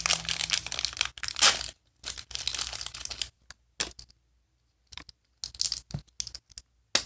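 A small plastic accessory bag being torn open and crinkled, with dense crackling for the first few seconds and then scattered crackles and a sharp click as the contents come out.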